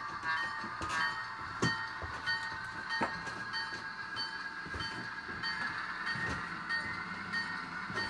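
Small speaker of an HO scale model diesel locomotive's DCC sound decoder, playing a ringing bell that repeats about three times a second over a steady engine sound. A few sharp clicks, like wheels passing rail joints, come through about one and a half and three seconds in.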